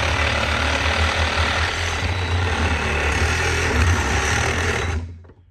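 Cordless reciprocating saw with a Dewalt blade running steadily as it cuts through the metal body of a microwave magnetron. It stops abruptly about five seconds in.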